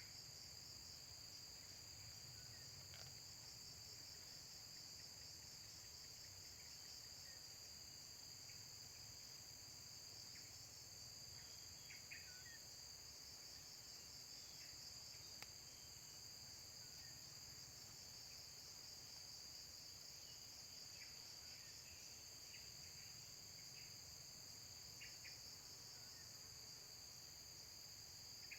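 Faint, steady, high-pitched chorus of insects, crickets or cicadas, with scattered short high bird chirps now and then.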